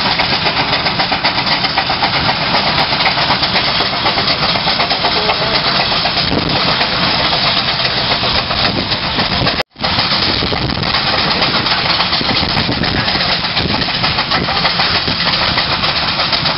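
Steam traction engines working under load on a heavy 100-ton pull, a loud continuous run of exhaust and working noise. It cuts out for an instant about ten seconds in.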